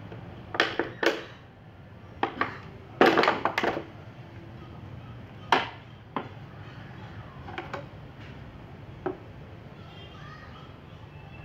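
Thin clear plastic water bottle crackling and clicking in short, irregular sharp bursts as it is gripped and pushed against with a heated screwdriver tip, loudest in the first few seconds and sparser afterwards.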